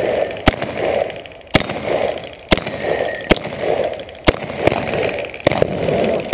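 Semi-automatic shotgun firing a string of sharp shots roughly a second apart, with a rushing noise between shots.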